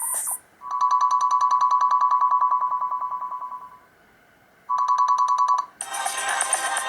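Built-in ringtone of a Black Fox B5 (BMM531A) phone playing through its speaker: a classic telephone-style ring, one steady tone pulsing rapidly, about ten pulses a second. It rings for about three seconds and fades, then rings again briefly after a short pause. Near the end a different electronic music ringtone begins.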